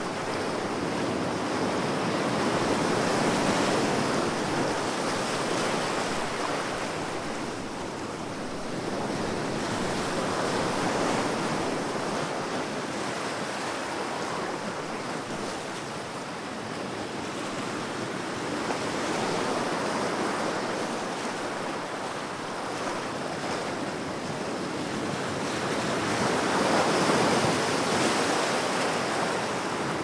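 Baltic Sea surf breaking on a beach: a continuous wash of breaking waves that swells louder four times, roughly every eight seconds, as each big wave comes in.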